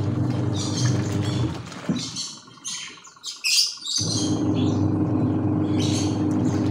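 Sharp twin-tub washing machine's wash motor running, churning a load of laundry in soapy water with a steady hum that drops out for about two seconds in the middle. Birds chirp repeatedly over it.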